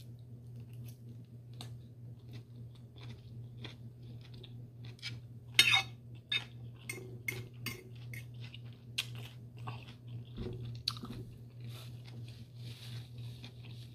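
Close-miked chewing and crunching of food, with many short sharp clicks scattered through it, the loudest about halfway. A steady low hum runs underneath.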